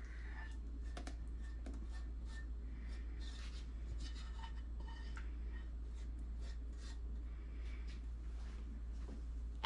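Faint scraping and light ticks of a utensil against a saucepan as the thick, hot fudge syrup is poured and scraped into a bowl, over a steady low hum.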